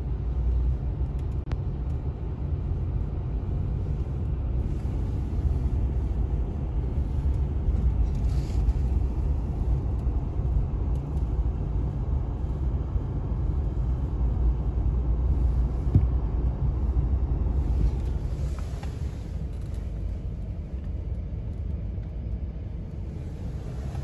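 Steady low rumble of a vehicle driving, heard from inside the cabin: engine and tyre noise on a snow-covered road.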